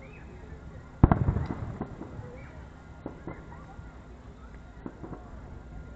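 Fireworks shells bursting over the water: one loud boom about a second in that dies away over about a second, then a few fainter bangs.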